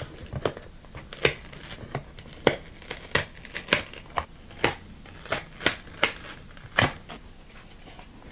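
Paper or food packaging crinkled and torn close to the microphone, a run of sharp crackles about two a second.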